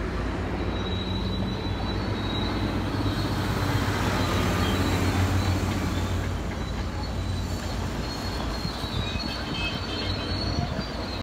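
Helicopter flying past: a loud, steady engine drone that swells to a peak about five seconds in, eases off, and cuts off suddenly at the end.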